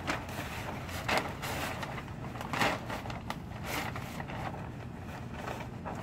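Irregular rustling and crunching handling sounds, a sharp burst every second or so, over a steady low rumble.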